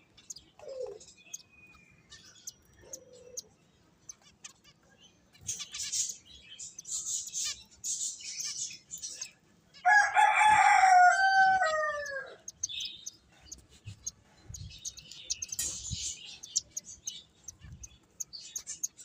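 Finches chirping in quick, high, twittering bursts. About ten seconds in comes a rooster's crow, the loudest sound: a single call of roughly two and a half seconds that drops in pitch at its end.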